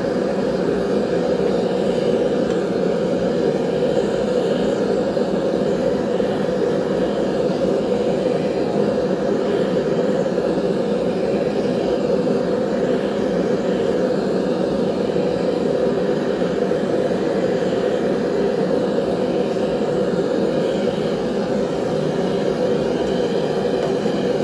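Forge running with a steady, even rushing noise from its fire and air, with no change throughout, while a knife blade is heated in it for annealing.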